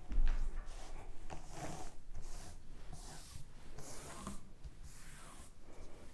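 Hands sweeping and pushing over a finished cardboard jigsaw puzzle, the pieces rustling and scraping against each other and the board. A low thump comes at the very start, then irregular soft swishes.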